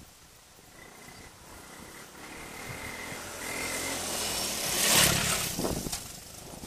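Honda ATC185S three-wheeler's single-cylinder four-stroke engine approaching at speed and passing close by, growing louder to a peak about five seconds in, then fading away. At the peak a rush of tyre-on-gravel noise joins the engine.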